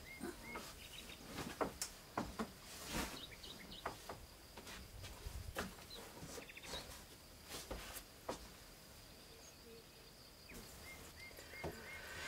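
Faint rustling, knocks and clicks of clothes and bags being handled while a suitcase is unpacked. Small bird chirps come through faintly, at the start and again near the end.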